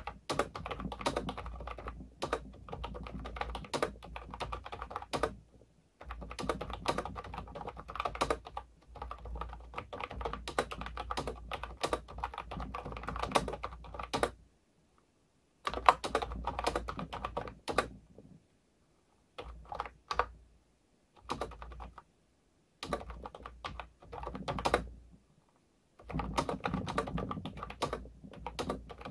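Fast typing on a Sades V2020 wireless keyboard with round typewriter-style keycaps: a dense clatter of key presses in runs, broken by several short pauses.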